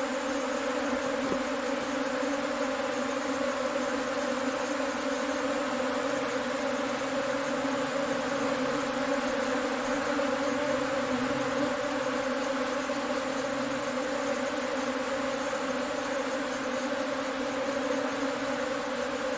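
A swarm of honeybees buzzing en masse: a steady, even-pitched hum. The swarm is moving into a new nest cavity in a rock crevice.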